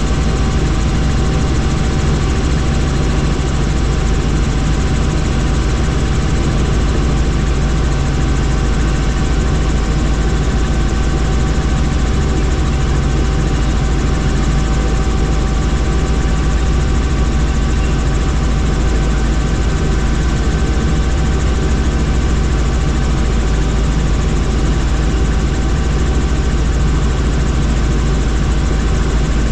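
A helicopter's turbine engine and rotor running steadily: a loud, even low rumble with a constant whine and no change in pitch or level.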